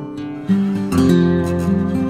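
Background music: acoustic guitar strumming chords, with new chords struck about half a second and a second in.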